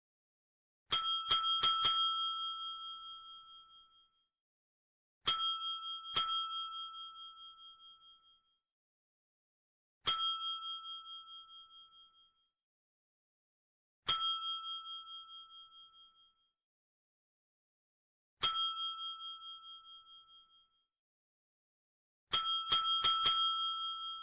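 Desk bell (service bell) struck repeatedly. Each strike gives a clear, high ding that fades over about two seconds. It comes as a quick run of four dings about a second in, then two, then three single dings several seconds apart, and another quick run near the end.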